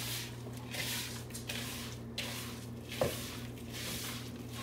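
Hands squeezing and kneading raw ground chicken meatball mixture (egg, breadcrumbs and cheese worked in) in a plastic bowl: a run of soft, wet squishes, one with each squeeze, over a steady low hum. A light knock about three seconds in.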